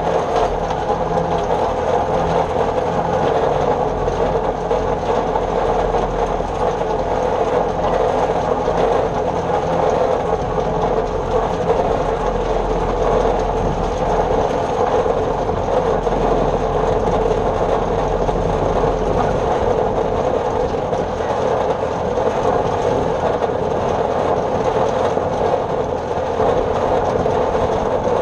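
New Holland Super 66 square baler running while baling hay: a steady, loud mechanical clatter that goes on without a break.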